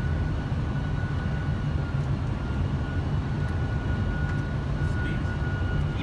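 Steady flight-deck noise of a Boeing 747-400 on final approach in landing configuration: an even low rumble of airflow and engines, with a faint steady high tone above it.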